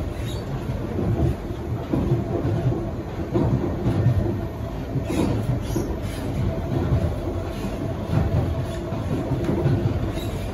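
Cabin of an SMRT C151B metro train running between stations: a steady rumble of wheels on the rails, with small rattles and knocks from the carriage.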